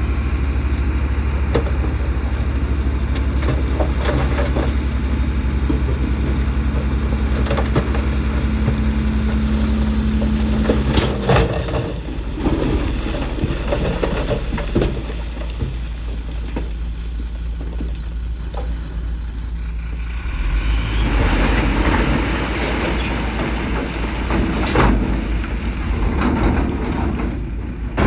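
Heavy diesel machinery running. A steady drone holds until about eleven seconds in, then drops away; scattered knocks follow, and a rougher, louder run of the engine comes in near twenty seconds.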